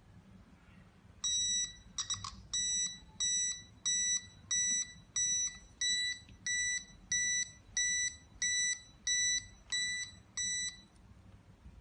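Bed-wetting (enuresis) alarm beeping: a high-pitched beep repeated about one and a half times a second for roughly nine seconds, then stopping, with a brief knock near the start. The beeping is the signal that the alarm's moisture sensor has detected wetness.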